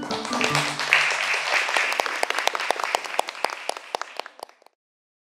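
A crowd of children and adults cheering and clapping, the applause thinning and fading out to nothing near the end.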